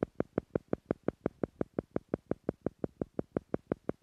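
Theta-frequency pulse track: short pitched beeps repeating evenly at about five a second, a background beat meant to slow brainwaves to the theta level.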